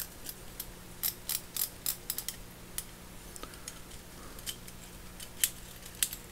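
Light, irregular metallic clicks and ticks as the knurled collar of a North Bros. Yankee Handyman No. 133H ratchet screwdriver is screwed back down onto its steel barrel by gloved hands, the parts catching and tapping as they are turned.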